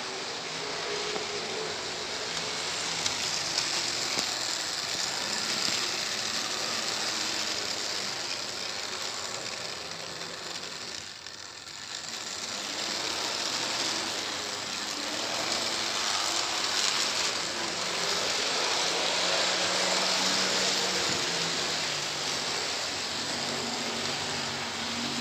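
HO-scale model passenger train running along the track, a steady mechanical whir and rattle. It dips briefly about eleven seconds in, then builds again.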